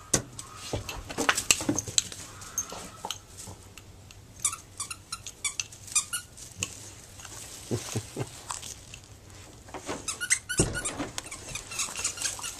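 Squeaky rubber dog-bone toy squeaking over and over in quick runs as a large dog chews it.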